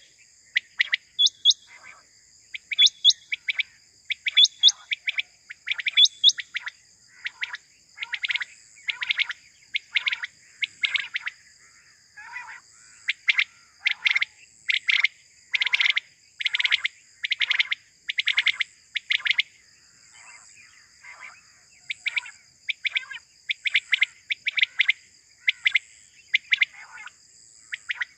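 Quail (batair) calling: repeated groups of short, sharp whistled notes, coming thickest in the middle, over a steady high insect drone.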